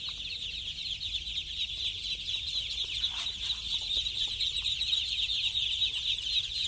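A large flock of three-day-old ducklings peeping continuously, hundreds of high peeps overlapping into one unbroken chorus.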